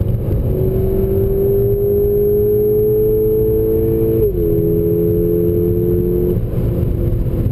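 Volkswagen MkVI GTI's turbocharged 2.0-litre four-cylinder heard from inside the cabin under hard acceleration, its note climbing steadily. The note dips quickly about four seconds in, climbs again, then drops away near the end, over a steady road and tyre rumble.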